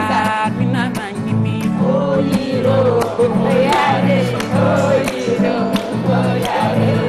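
Acoustic guitar strummed in a steady rhythm while several voices sing along together.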